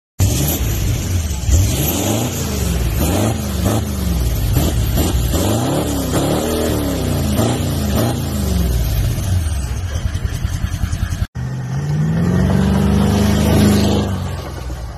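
Toyota Land Cruiser VDJ200's twin-turbo V8 diesel through an aftermarket turbo-back exhaust, revved repeatedly so the note rises and falls several times. After a brief break about eleven seconds in, it runs more steadily and climbs in pitch, as when the vehicle pulls away.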